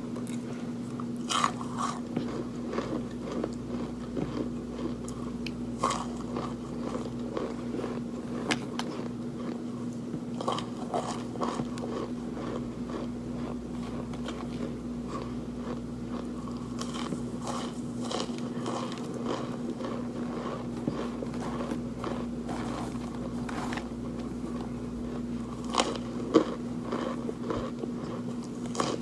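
Close-up biting and chewing of something crunchy, with irregular sharp crunches between stretches of softer chewing and a loud crunch near the end.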